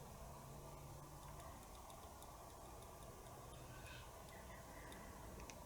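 Near silence: room tone with a run of faint, light ticks.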